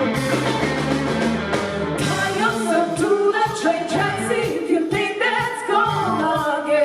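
Live blues-rock band playing, with vocals over guitar, bass and drums.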